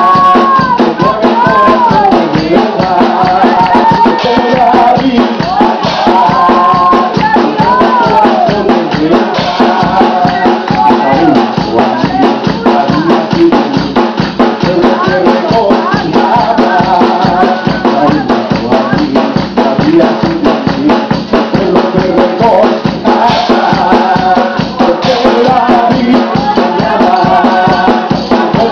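Spanish-language worship song played loud through a PA: a man sings into a microphone over a fast, steady percussion beat.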